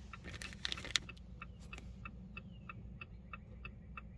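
Hazard-light flasher in a 2019 Jeep Compass ticking steadily, about four clicks a second, with a few louder handling clicks in the first second.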